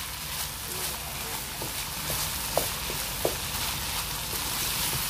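Chicken keema with peas sizzling in a pan: a steady crackling hiss, with two faint short chirps between two and a half and three and a half seconds in.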